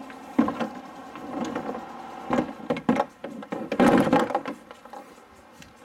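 Plastic kayak hull knocking and scraping against a car's rooftop kayak carrier as it is lifted into place: a series of thumps, the loudest and longest about four seconds in.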